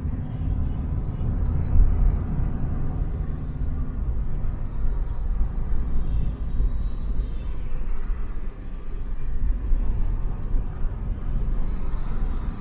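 Low, steady rumble of a car being driven on city roads: engine and tyre noise with no distinct events.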